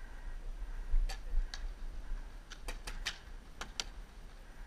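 Paintball markers firing: about seven sharp, irregular pops, bunched between about one and four seconds in, over a low rumble.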